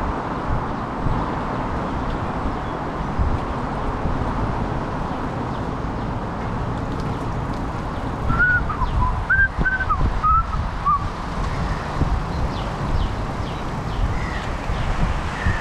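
Wind buffeting the microphone and bicycle tyres rolling on an asphalt path, a steady gusty rumble. A little past halfway comes a quick string of six or so short, high whistled chirps over about three seconds, with a couple of fainter ones near the end.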